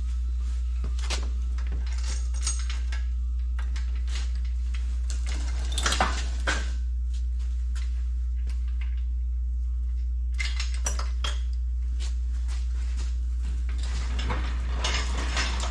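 Metal engine parts and hand tools clinking and clattering in irregular bursts as an engine is reassembled by hand, busiest about six seconds in and again near the end, over a steady low hum.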